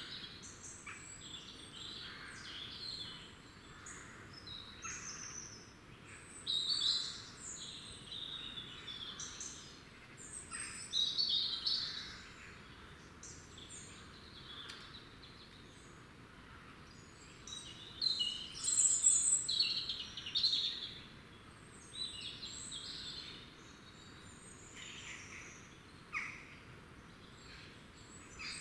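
Several small woodland birds chirping and twittering in overlapping short calls and song phrases over a faint steady background hiss, with the busiest, loudest stretches a little past ten seconds in and again around twenty seconds in.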